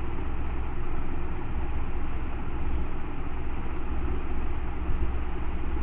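Steady, fairly loud rumbling background noise with no distinct events in it.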